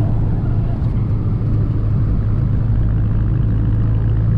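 Volkswagen Golf GTI Mk6's turbocharged 2.0-litre four-cylinder engine and exhaust running steadily while cruising, a constant low note with no revving.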